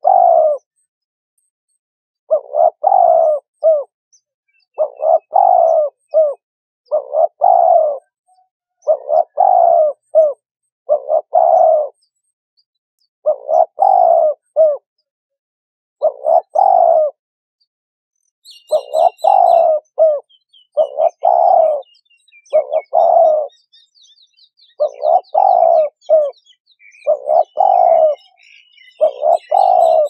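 A dove cooing over and over, in short phrases of two or three coos every second or two. Small birds chirp faintly alongside in the second half.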